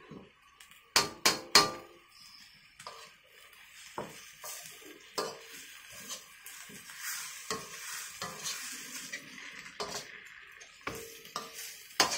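Wooden spatula stirring and scraping flat rice noodles and yellow noodles around a stainless steel wok, with a faint sizzle of frying. Three loud sharp knocks about a second in and another near the end.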